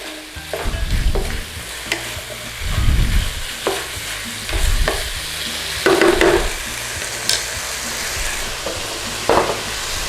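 Chicken, peppers and onions sizzling as they are stir-fried over high heat, with a utensil knocking and scraping against the pan every second or two.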